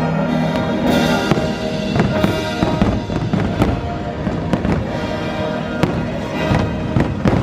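Fireworks bursting over and over, many sharp cracks and bangs every second or so, over loud music playing throughout.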